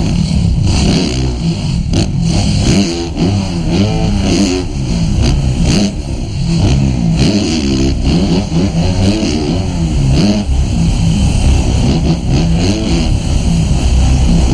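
Motocross bike's engine, heard from the rider's helmet camera, revving up and down over and over as the throttle is worked through the jumps, with a few short knocks along the way.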